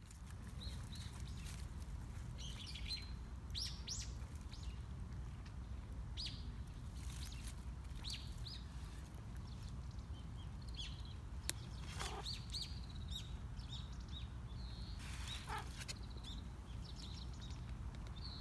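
Small birds chirping with many short, high calls scattered throughout, a few of them sweeping sharply downward, over a steady low background rumble.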